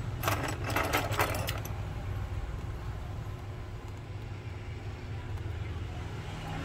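A steady low hum, with a quick run of sharp clicks and rattles in the first second and a half.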